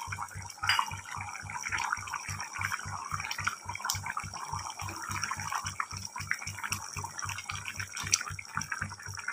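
Crab curry boiling hard in an aluminium kadai: a steady bubbling and popping of thick gravy. A faint low pulsing, about five beats a second, runs beneath it.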